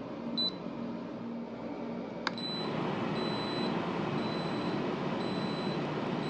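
An Instant Pot air fryer lid: a short control-panel beep, then a click about two seconds in as the lid starts, and its fan whirring steadily. Faint high tones come and go about once a second over the fan.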